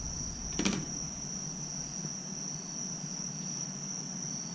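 Crickets trilling steadily on one high note, with a single sharp click about two-thirds of a second in.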